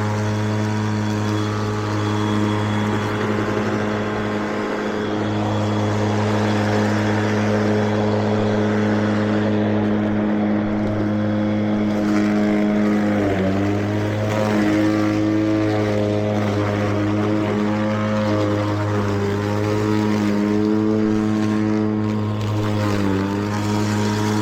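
Battery-electric Mowrator remote-control mower running: a steady, loud motor hum with a whine in its overtones. Its pitch sags briefly twice, once near the middle and once near the end.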